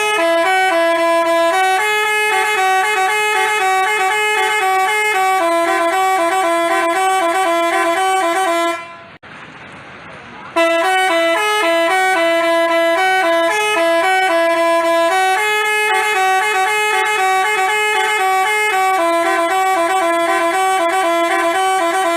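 Basuri telolet bus horn playing a tune of quick stepped notes. It plays two long phrases with a break of about a second and a half in between.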